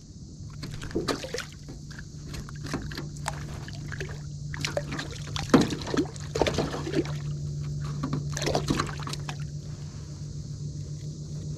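Irregular clicks, knocks and light splashes as a white perch is handled and unhooked against the side of an aluminum boat, the sharpest knock about halfway through, over a steady low hum.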